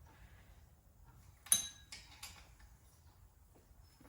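Small metal parts clinking together: a sharp, ringing metallic clink about one and a half seconds in, followed by two lighter clicks.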